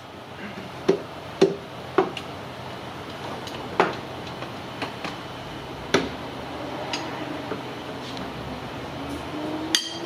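Steel sockets and wrenches clinking against engine metal as bolts are worked loose: a handful of sharp, irregular clinks.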